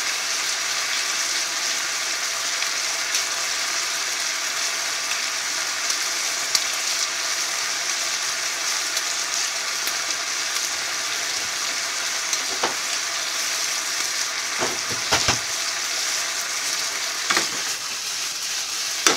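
Pork strips sizzling steadily as they fry in butadon sauce in a wok, with a few short knocks in the second half.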